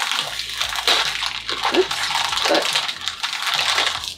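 Plastic candy-kit wrapper crinkling as it is handled and pulled open by hand.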